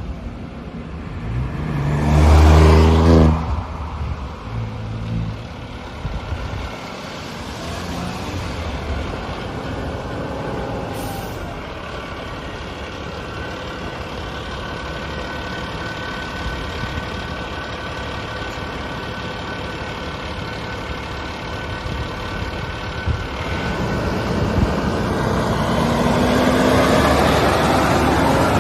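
Heavy emergency vehicles pulling away, diesel engines running with road rumble. About two seconds in there is a loud, low-pitched blast with a hiss, and a shorter one follows. Near the end another vehicle accelerates past with a rising engine note.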